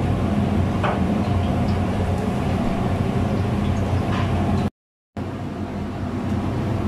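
Steady low roar of a gas stove burner running under a large iron wok of heating oil, with a couple of faint clicks. The sound drops out for about half a second roughly two-thirds of the way through.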